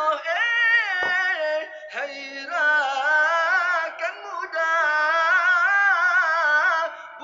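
A young man singing an Indonesian sahur wake-up song into a microphone, with long held notes that waver in ornamented runs and short breaths between phrases.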